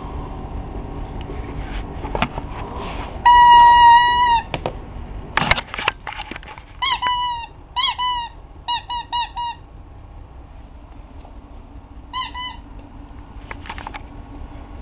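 Small pet dog whining to have a door opened: one long, steady high whine, then a string of short whines and a last brief one near the end, with a few sharp knocks in between.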